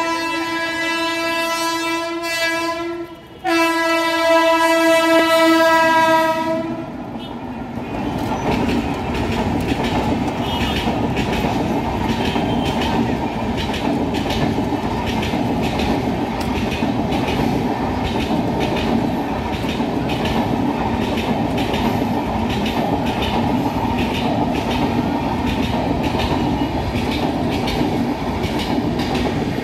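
Electric locomotive horn sounding two long blasts, the second following a brief gap about three seconds in. The train then rolls slowly past, its wheels clacking steadily over the rail joints and crossing with a continuous rumble.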